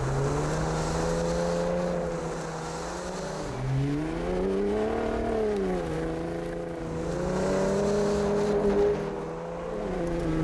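Ford F-150 Raptor's high-output 3.5-litre EcoBoost twin-turbo V6 engine pulling steadily while driving off-road. It revs up and back down about midway, then settles again.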